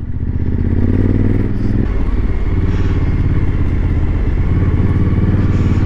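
Suzuki V-Strom motorcycle engine running as it rides slowly along a rough dirt road, two-up. The engine note rises briefly about a second in, then eases off and holds steady.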